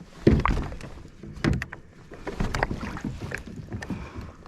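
Kayak hull knocking and bumping as a person climbs into it from the water's edge, with a sharp thump about a third of a second in, another about a second and a half in, and lighter clicks and shuffling between.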